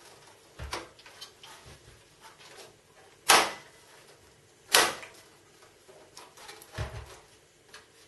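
Thin sheet-metal motherboard I/O shield being pressed into a PC case's rear cutout, with sharp metallic snaps as its edges seat. Two loud snaps come about a second and a half apart in the middle, with lighter knocks before and after.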